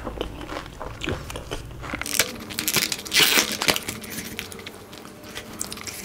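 Close-miked chewing with small mouth clicks, then the clear plastic lid of a compartment takeaway tray being pulled off with loud plastic crackling, loudest about three seconds in.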